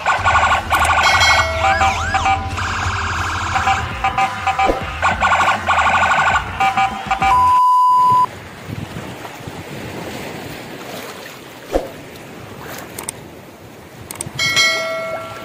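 Toy fireboat's electronic siren sound effects: a fast jumble of warbling siren wails and beeps, ending about eight seconds in with one long steady beep that cuts off sharply. After that comes a quieter rushing noise, and a short burst of electronic tones near the end.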